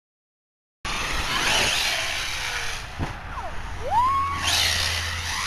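HPI Savage brushless-converted RC monster truck running on dirt: bursts of wheel and gravel noise over a steady low hum, with a click and a short whine that rises and levels off in the middle. The sound starts abruptly about a second in.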